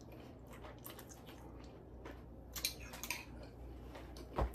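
Faint chewing and wet mouth sounds of someone eating a mouthful of noodles, with soft scattered clicks and a dull thump near the end.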